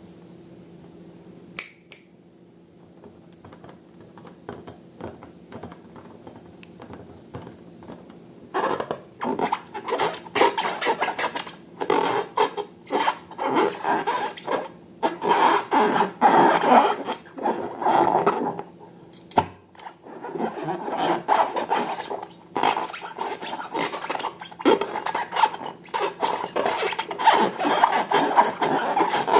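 Slime being worked by hand: dense, irregular sticky clicking and crackling, sparse at first and growing much louder and busier about eight seconds in.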